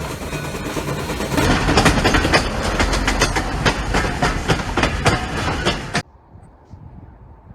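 Union Pacific train rolling past, its wheels clattering over the rails in quick irregular clicks. The sound cuts off abruptly about six seconds in, leaving a low background.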